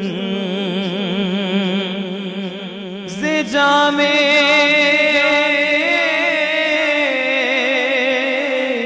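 A man singing a naat solo into a microphone, with no instruments. He holds long, melismatic notes with wide vibrato, then steps up to a louder, higher sustained note about three seconds in.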